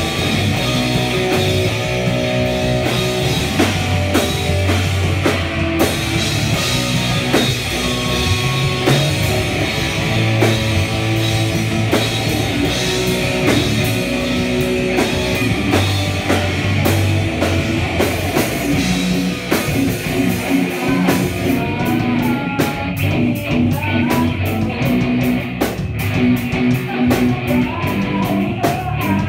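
Live rock band playing: electric guitars, bass guitar and a full drum kit. In the last third the drums settle into a steady cymbal beat of about four strokes a second.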